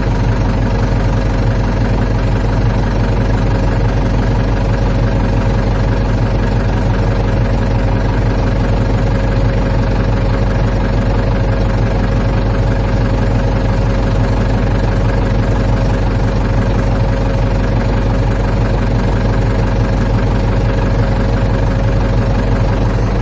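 Ford 755 backhoe engine running steadily at a constant speed, with no revving.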